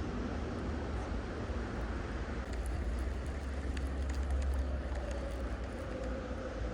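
Outdoor ambience: a steady low rumble with a few faint light ticks, and a faint hum that slowly drops in pitch from about five seconds in.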